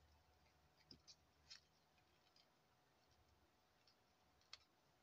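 Near silence: room tone with a few faint clicks from handling the paper bookmark and craft materials, the sharpest one near the end.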